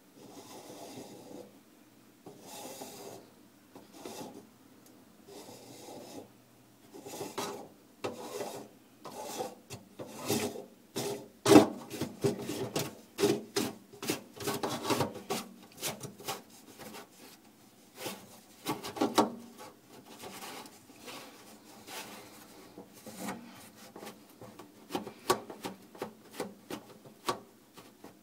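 Black plastic mounting collar of a Waste King garbage disposal's sink-flange mount being twisted by hand on its threads, rasping and scraping in irregular strokes that grow louder and quicker in the middle.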